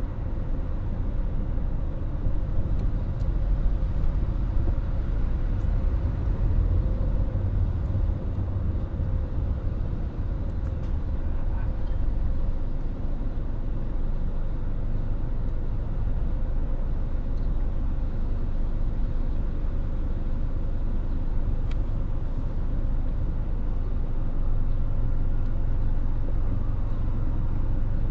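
Steady low rumble of a car driving on city streets: engine and tyre road noise with surrounding traffic.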